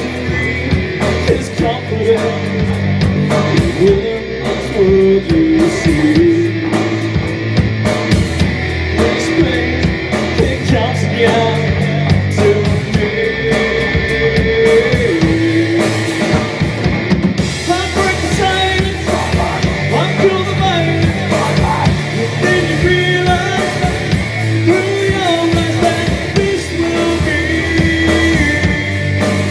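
A rock band playing live: electric guitar, electric bass guitar and a drum kit, with a sung lead vocal over them.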